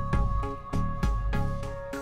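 Instrumental background music with a steady beat and held tones.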